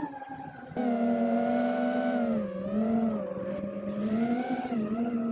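Alien RR5 FPV racing quadcopter's brushless motors and propellers whining in flight, the pitch wavering up and down with throttle. Quieter for the first moment, then it jumps sharply louder a little under a second in, with a couple of brief pitch dips around the middle.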